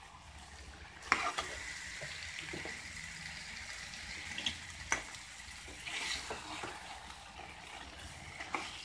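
Steel spoon stirring chicken pieces through a thick green chilli masala in an aluminium pan: wet scraping and squelching, with a few sharp clinks of the spoon against the pan, over a faint frying sizzle.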